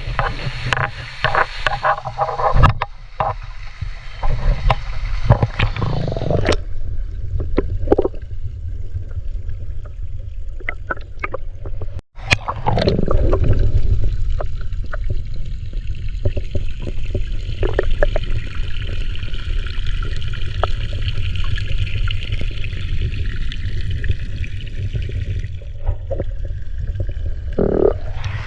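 Flowing stream water, a steady rushing rumble heavy in the low end on the GoPro's microphone, with scattered knocks and clicks of movement in the first half.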